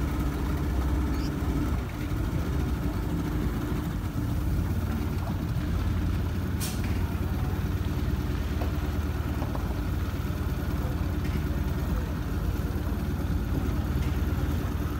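Speedboat engine running at low speed as the boat pulls slowly away from the dock, a steady low drone whose note shifts about two seconds in. A single sharp click about six and a half seconds in.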